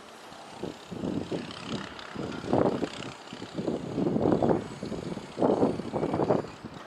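Wind buffeting the microphone in irregular gusts, a rumbling, uneven noise that swells and drops every second or so.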